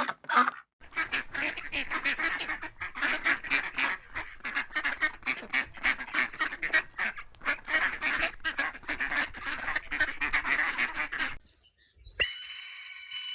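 A flock of ducks quacking: many calls overlapping in a dense chorus that stops abruptly about 11 seconds in. Shortly after, a steady, high whistle-like tone sets in suddenly.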